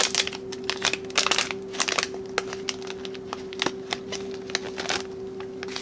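Thin plastic packaging bag crinkling and crackling as it is handled and opened by hand, thick and fast at first and then in sparser crackles that stop about five seconds in, over a steady low hum.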